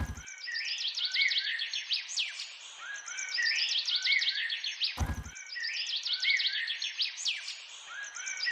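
Birds chirping and whistling in a dense chorus over a faint hiss. The same few seconds repeat after about five seconds, each pass starting with a brief low thump.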